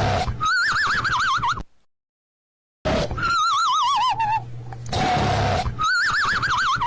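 Cartoon-style snoring on a loop: a rasping snore on the in-breath followed by a high, warbling whistle on the out-breath, repeated. The sound cuts to dead silence for about a second near the middle.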